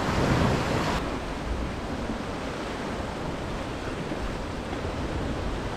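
Sea surf washing against a rocky shore, a steady rushing noise, with some wind on the microphone.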